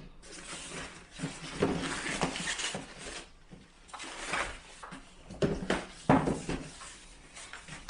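Cardboard box being opened by hand, with flaps and packing rustling and scraping in irregular bursts and a sharp knock about six seconds in.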